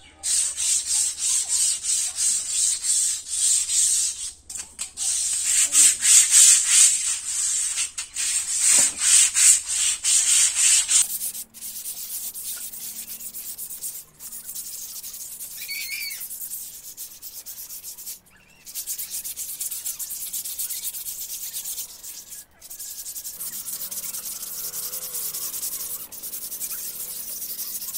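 Hand-scrubbing an algae-slick surface with sand, fast, even, gritty strokes to clear the algae so it is less slippery. The scrubbing is loud for about the first eleven seconds, then goes on more quietly.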